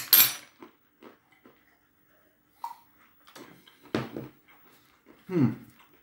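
A short, loud slurp as a sip of soft drink is taken, then soft chewing and mouth clicks. Two louder breathy mouth sounds follow about four and five and a half seconds in, the second a short hum that falls in pitch.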